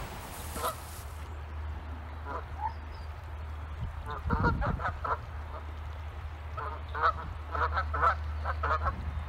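Birds calling in short repeated calls: a few single ones, then two quick runs, one around the middle and one near the end. A low steady hum runs underneath.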